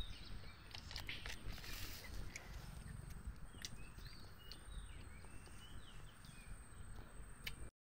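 Faint mangrove mudflat ambience at low tide: scattered soft clicks and ticks, a few short high chirps in the middle, and a low wind rumble. The sound cuts off just before the end.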